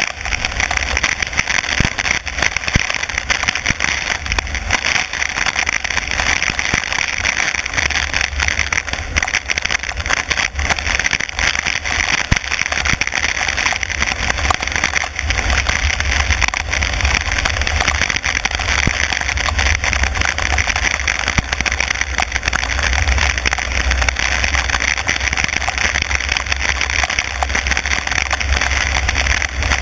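A car driving on a wet road in heavy rain: a steady hiss of rain and tyres on wet tarmac over a low engine rumble, with many small ticks of raindrops striking.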